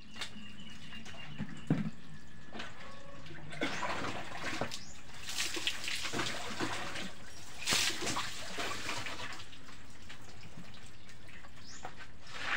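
Water scooped from a tub and splashed and poured over a body during a bucket bath, running off onto a wet floor in uneven splashes. The splashing comes in a busy stretch through the middle, loudest at one pour, with a knock early on and another splash near the end.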